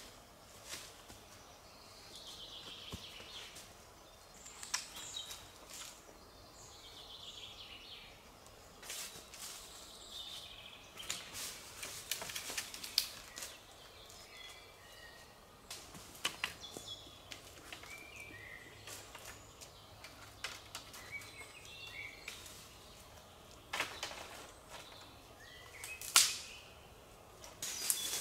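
A bird singing a falling phrase twice near the start, with short chirps later on. Over it come scattered clicks, crackles and knocks, and a sharp knock near the end is the loudest sound.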